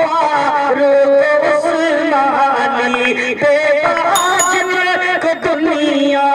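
A solo male voice singing a naat (devotional song in praise of the Prophet) into a microphone, drawing out long, wavering melodic phrases.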